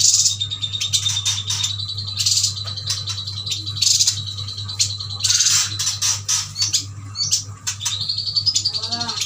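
Yuhinas chirping and calling in quick, repeated high bursts, over a steady high tone and a low hum.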